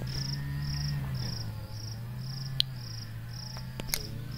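An insect chirping in an even rhythm, about two high pulses a second, over a low steady hum, with two sharp clicks in the second half.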